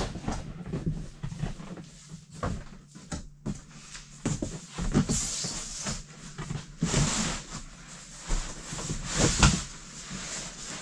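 A large cardboard shipping box with a fat-tire e-bike inside being tipped over by hand: cardboard scraping and rubbing, with repeated knocks and bumps and a few louder scrapes in the second half.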